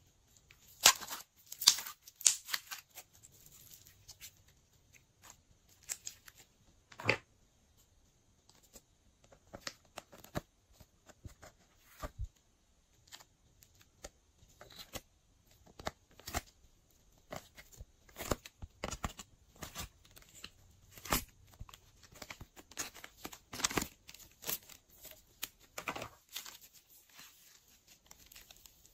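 Glossy slime being stretched, squeezed and folded by hand, making irregular sharp clicks and pops.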